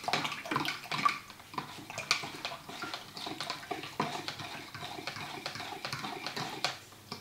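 A fork stirring beef broth in a plastic measuring cup: quick, uneven clinks of the fork against the cup, with liquid swishing.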